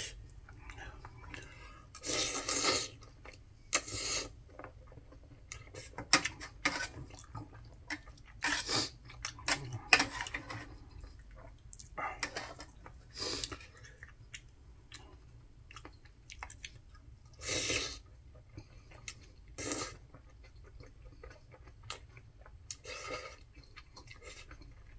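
A man chewing and eating food close to the microphone, with short louder mouth noises every few seconds between quieter chewing.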